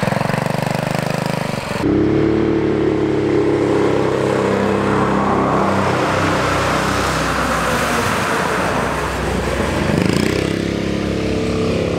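Predator 212 single-cylinder engine with an aftermarket header and muffler on an off-road go-kart, running under throttle as the kart drives. About two seconds in, the scene cuts to the kart driving through a corrugated steel culvert tunnel, and the revs climb near the end.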